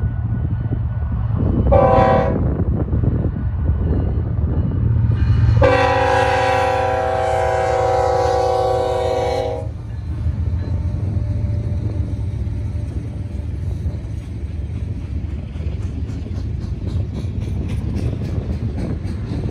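Diesel freight locomotives rumbling past, the lead unit sounding its horn: a short blast about two seconds in, then a long blast of about four seconds. Later, a quick even clicking of wheels over the rail.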